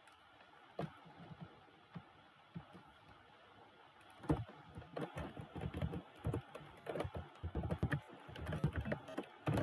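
Typing on a computer keyboard: a few separate keypresses in the first four seconds, then a quick, steady run of keystrokes from about four seconds in.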